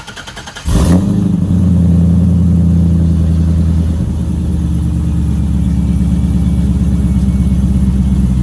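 2003 Chevrolet Corvette C5's V8 cold-started: the starter cranks briefly, the engine catches about a second in, and it settles into a steady idle that steps down slightly about four seconds in. It is being run to warm the oil for draining.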